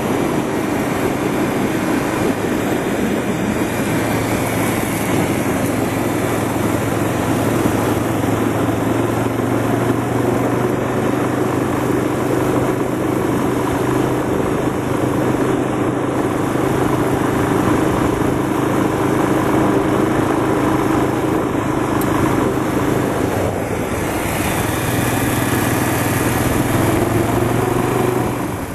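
Quad bike engine running steadily at riding speed over a dirt trail. The engine note dips briefly about three-quarters of the way through, then picks up again.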